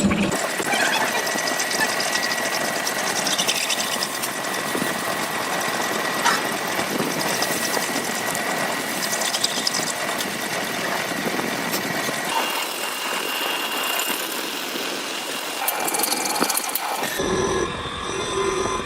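Metal lathe running while cutting a worm thread, a dense machining noise with a steady high-pitched whine through the first two-thirds. The sound changes abruptly near the end.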